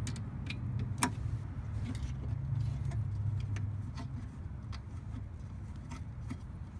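Small metallic clicks and ticks of a wing nut and bolt being handled and threaded by hand, one sharper click about a second in. Under them runs a low, steady hum like road traffic, fading after a few seconds.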